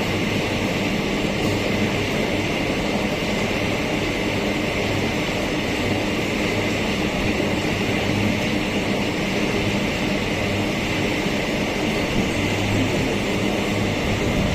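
Empty iron-ore freight train running past at steady speed, a continuous rail noise that holds level throughout.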